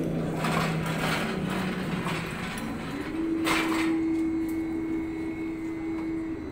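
Cargo crane machinery running with a steady hum that steps up in pitch about three seconds in, as the crane swings its empty spreader beam and hanging chains out over the quay. A few short rattles sound over it, the loudest about three and a half seconds in.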